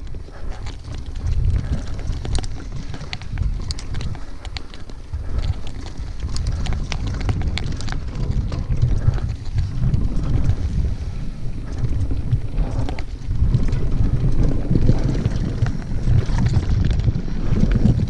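Yeti SB6 mountain bike riding over a dirt trail covered in dry leaves. Wind rumbles on the microphone over the tyre noise, with frequent small clicks and rattles. It gets louder about two-thirds of the way in.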